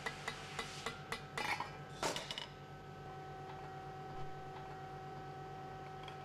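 A screwdriver worked inside a steel pump head, its tip clicking against metal in an even rhythm of about three clicks a second, as the shaft is freed. The clicking stops about a second in and gives way to two louder metallic clatters, then only a faint steady hum remains.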